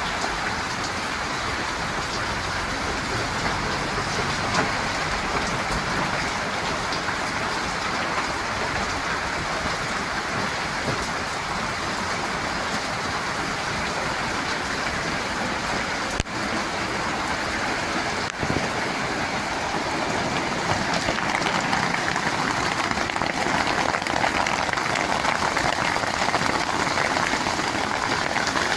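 Heavy rain falling in a steady downpour, growing a little louder in the last third.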